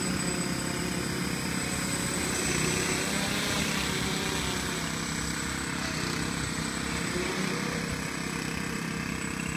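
Alien 560 X8 octocopter flying, its eight brushless motors in coaxial top-and-bottom pairs spinning propellers with a steady whir made up of several motor tones.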